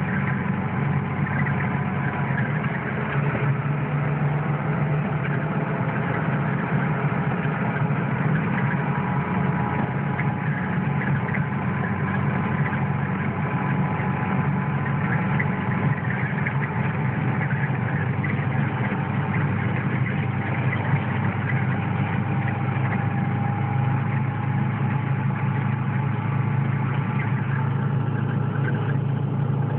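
Car engine running steadily, heard from inside the cabin as a constant low drone while the car drives.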